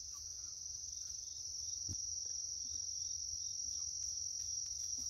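Crickets chirring in a steady, unbroken high-pitched chorus, over a faint low rumble and a few faint clicks.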